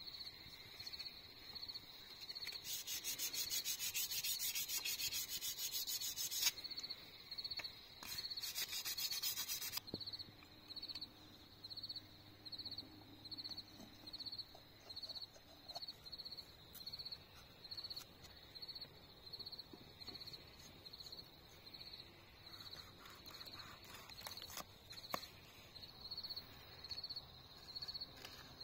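An insect, cricket-like, chirping steadily about one and a half times a second in a high pitch. A loud rasping, scraping sound comes in over it from about two and a half to six and a half seconds in, and again briefly from about eight to ten seconds.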